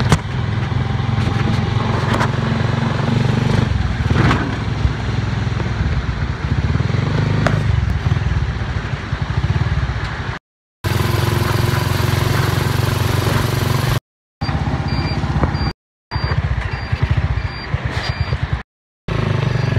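Motorcycle engine of a motorized tricycle running steadily, heard from inside the sidecar while riding, with some clatter. In the second half the sound cuts off abruptly to silence several times.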